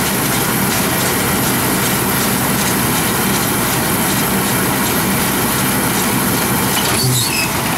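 Case tractor engine running steadily while pulling a John Deere round baler, its pickup and baling mechanism clattering as hay is gathered and rolled into a bale.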